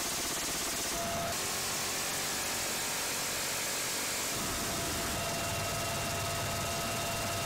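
Steady noise inside a military helicopter's cabin in flight, with the doors open: a rush of wind and rotor with a turbine engine's whine. The sound changes about a second in and again about four and a half seconds in, where a high, steady turbine whine comes in.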